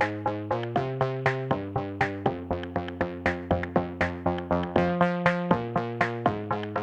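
Background music: an electronic track with a steady beat of short struck notes, about four a second, over held chords that change every second or so.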